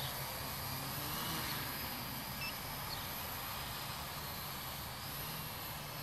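Home-built quadcopter's electric motors and propellers buzzing in flight, a steady sound with faint shifts in pitch.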